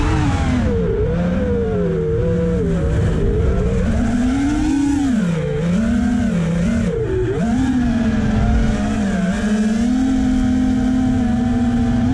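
FPV freestyle quadcopter's electric motors and propellers whining, the pitch swooping up and down with the throttle several times and then holding steady for the last few seconds.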